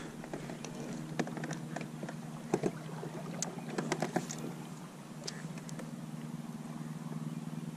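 Hobie Outback pedal kayak moving through calm water under pedal power: a steady low hum and water against the hull, with scattered light clicks and knocks.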